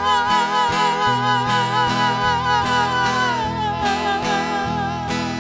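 Sertanejo duo of male voices holding a long sung note in harmony with vibrato, over acoustic guitar and a bass backing; the held note ends about three seconds in and the accompaniment carries on.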